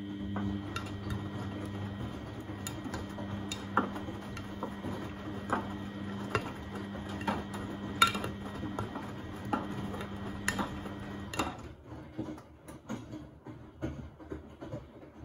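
Beko WMB71642W washing machine tumbling its drum during the wash: a steady motor hum with a faint high whine, and light irregular clicks and knocks from the load turning in the drum. The motor stops about eleven seconds in and the drum rests, with only a few soft clicks after.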